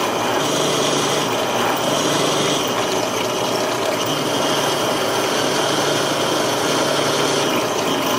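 Shop power tool running steadily under load, a constant motor hum with a high whine over it.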